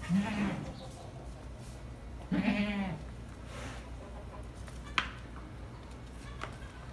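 Ten-day-old goat kids bleating twice: a short call at the start and a longer, wavering call about two and a half seconds in. A single sharp tap comes about five seconds in.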